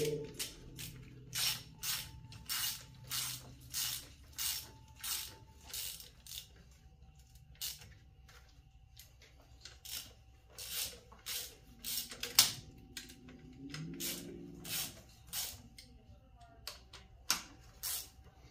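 Socket ratchet clicking as it is worked back and forth, snugging down the nuts on an engine's rocker-arm assembly and cylinder head. The clicks come in runs of about three a second with short pauses, and one click about twelve seconds in is louder than the rest.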